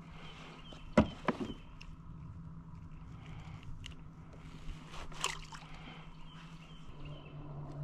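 Sharp knocks and light clicks of a small fish being handled and unhooked over a plastic kayak. Two knocks come close together about a second in, the louder first, and a smaller cluster of clicks follows a little past the middle, over a low steady hum.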